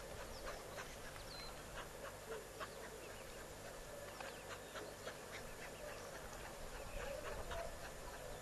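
Wildlife ambience: many short, quick bird chirps and calls, one after another, over a steady low hum.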